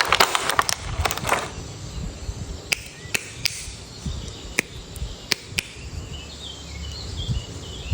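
Plastic toy packaging and an action figure being handled. A dense crinkling and crackling lasts about a second and a half, then a few isolated sharp plastic clicks follow.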